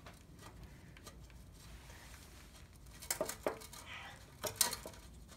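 Metal tool clinks and clicks as a 1/2-inch socket works loose the hidden bolt behind the starter that holds the transmission dust cover. There are faint clicks at first, a few sharper clinks about three seconds in, and the loudest clink about a second later.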